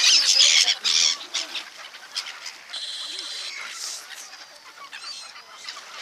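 Black-headed gulls squawking in a squabbling flock, loud and crowded for the first second and a half, then sparser, fainter calls.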